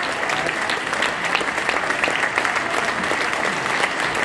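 Large audience applauding steadily: a dense, even patter of many hands clapping.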